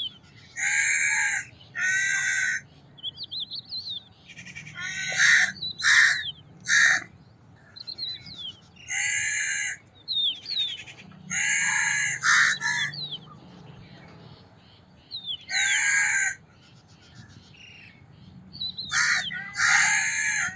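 Crows cawing repeatedly, some of the caws coming in quick pairs, with small birds chirping in the gaps between.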